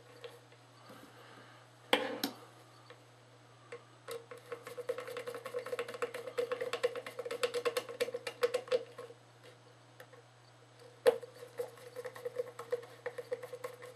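Screws being turned by hand with a small screwdriver into a plastic floodlight housing, giving runs of rapid clicking. A sharp knock comes about two seconds in and another near eleven seconds, with the clicking starting again after it.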